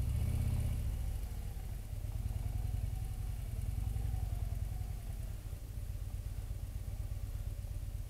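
Touring motorcycle engine running at low revs while riding slowly, a steady low rumble that is a little louder for the first second.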